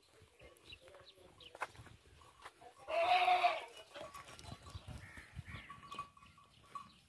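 A goat bleats once, loudly, about three seconds in, for just under a second. Faint scattered knocks and soft calls come before and after it.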